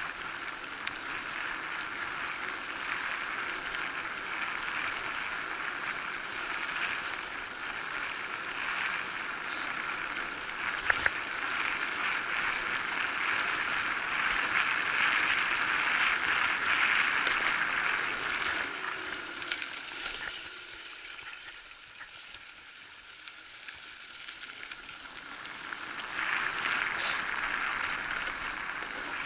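Electric bike rolling along a forest dirt trail: a steady hiss of the tyres on dirt and gravel. A sharp knock comes about eleven seconds in. The noise drops for a few seconds past the middle, then picks up again near the end.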